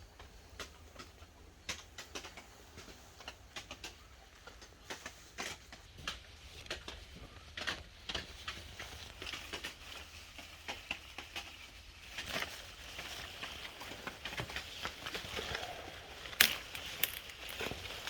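Irregular light taps and clicks, a few each second, with one sharper click about sixteen seconds in, over a faint low hum.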